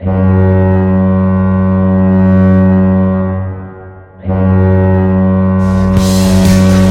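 Vegas Golden Knights goal horn sounding two long, deep blasts: the first lasts about three and a half seconds and the second starts a little after four seconds in. Goal-song music with a beat comes in under the second blast near the end.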